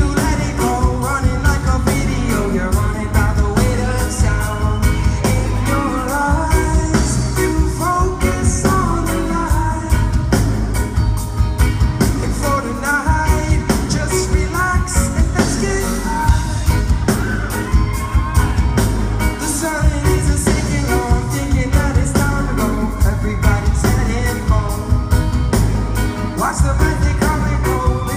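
Live reggae band playing, with heavy bass, a steady beat and a sung vocal line.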